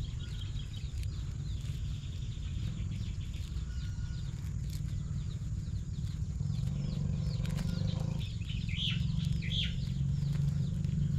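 Birds chirping: many short, high, falling chirps, thickest in the second half, over a low steady rumble.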